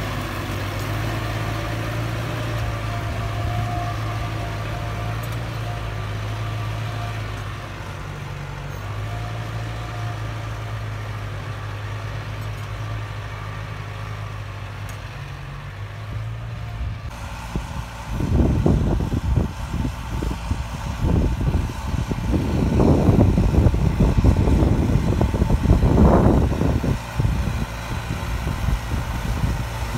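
A New Holland tractor's diesel engine running steadily with a low hum while working the field. About 17 seconds in, the sound changes abruptly, and loud, irregular rumbling buffets sit over the engine.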